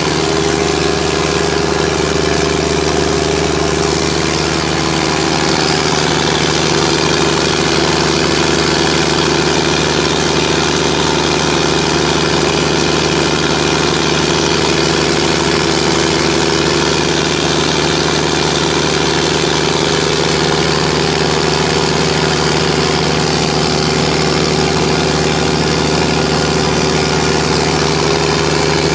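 Unenclosed 180 kVA John Deere diesel generator set running steadily at a constant speed, loud and even.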